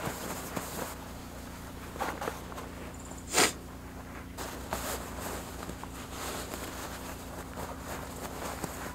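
Nylon rustling and scraping as a sleeping bag is stuffed into its stuff sack, with one short, sharp swish about a third of the way in that is the loudest sound.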